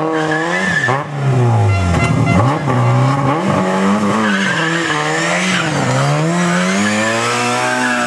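Classic Lada rally car's four-cylinder engine revving hard through a hairpin, its pitch dropping and climbing again several times with gear changes and throttle lifts. The tyres squeal as the car slides.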